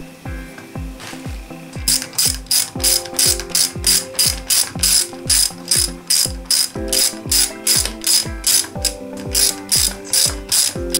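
Ratchet wrench clicking in rapid, even back-strokes, about three a second, starting about two seconds in: the bolts of a motorcycle engine's cam chain tensioner being run down. Background music with a steady beat plays throughout.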